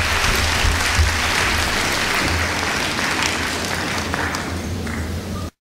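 Audience applauding, easing off a little and then cutting off abruptly near the end, over a steady low hum.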